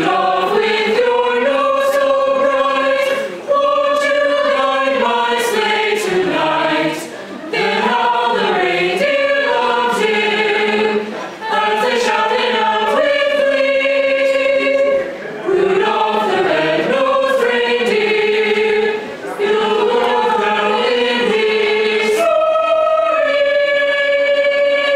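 Mixed-voice youth choir singing a cappella, in phrases a few seconds long with brief breaths between them, ending on a long held chord near the end.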